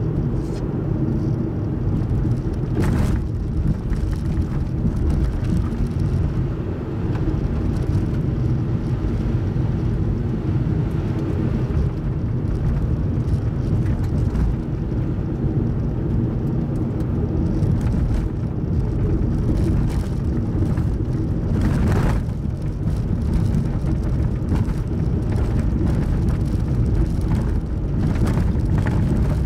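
Car driving at road speed, heard from inside the cabin: a steady low rumble of tyres and engine. Two short swells of hiss come about 3 s and 22 s in.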